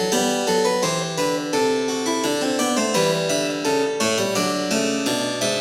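Background music: a plucked keyboard tune, harpsichord-like, playing steady notes throughout.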